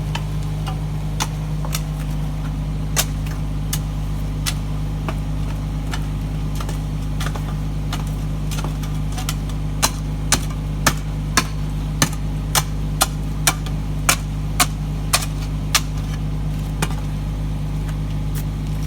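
An engine running steadily. Over it come sharp knocks, scattered at first, then about two a second for several seconds in the second half.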